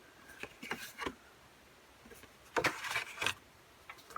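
Thin cardboard album pictures being handled: a few short rustles in the first second, then a louder run of them a little past halfway.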